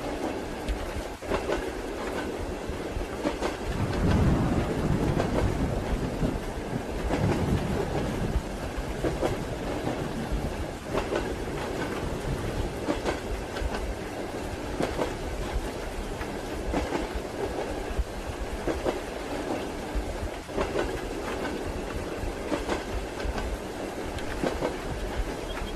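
Train running on rails, its wheels clacking over rail joints above a steady rumble, with a steady rain hiss mixed in. The rumble swells louder about four seconds in.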